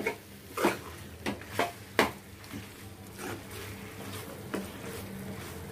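Steel spatula stirring thick chicken curry in a kadai, with irregular clinks and scrapes against the pan about every half second to second.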